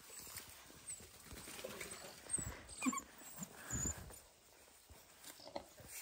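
Dalmatian puppies moving about: faint scattered knocks and scuffles, with a few short high squeaks about halfway through.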